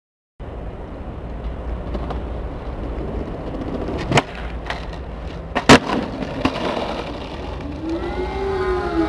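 Skateboard wheels rolling on hard pavement with a steady rumble, broken by sharp cracks of the board hitting the ground, the loudest about four and five and a half seconds in. A droning tone that rises and falls comes in near the end.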